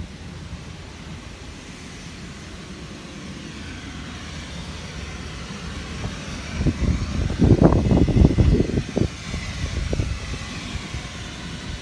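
Steady drone of the blower that keeps the bouncy castle inflated. From about six and a half to nine and a half seconds in, loud, uneven low buffeting rises over it.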